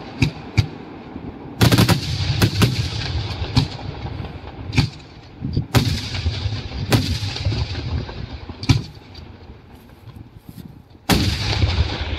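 Daytime fireworks display: aerial shells bursting overhead with sharp, irregular bangs, each followed by a rumbling echo. A quick run of bangs comes about a second and a half in, and a dense volley near the end.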